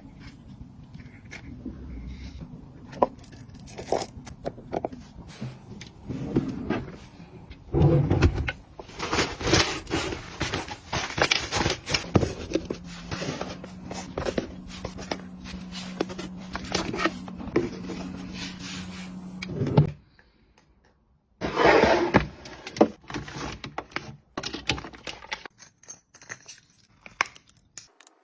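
Small household objects being handled and set down: a string of clicks, knocks, rattles and scraping. A steady low hum runs underneath for several seconds in the middle, and the handling stops briefly after that.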